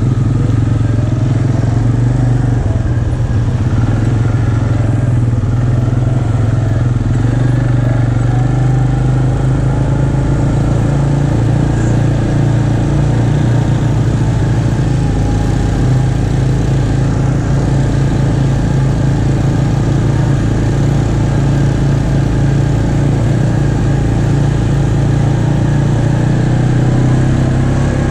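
ATV engine heard on board, running steadily as the quad rides along a dirt trail, its pitch rising and easing a little around the middle.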